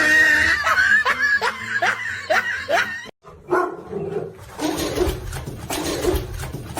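A dog barking and yipping in a quick series of short calls. It breaks off about three seconds in, and a noisier stretch follows.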